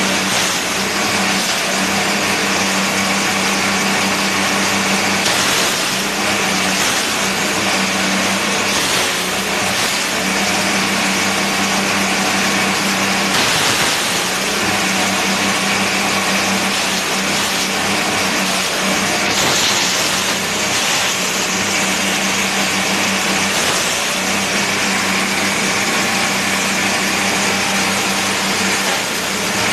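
Yellow M200 grass chopper running steadily on its small engine while grass and leafy stalks are fed into it, with louder rushes of noise now and then as the blades cut through the stalks.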